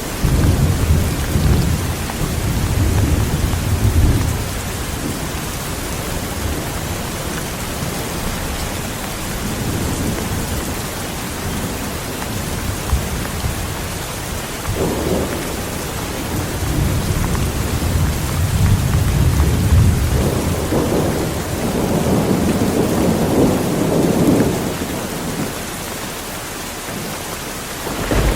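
Heavy rain falling steadily, with rolling thunder rumbling over it: a long rumble at the start, another building in the second half, and a fresh one breaking near the end.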